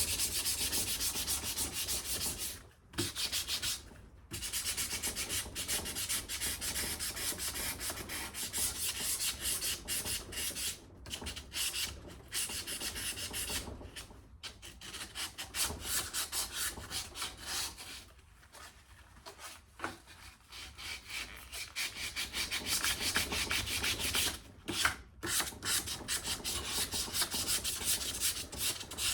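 Sandpaper scrubbing a rusty old iron axe head by hand in rapid back-and-forth strokes, with a few short breaks, the longest about two-thirds of the way through.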